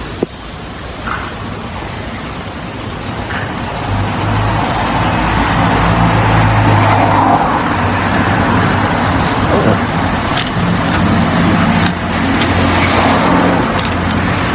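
A motor vehicle's engine running close by, a steady low hum with road-like noise that grows louder about four seconds in.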